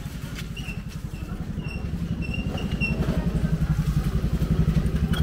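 A motorcycle engine running close by, its low even pulse growing louder over the first four seconds or so, then easing slightly near the end.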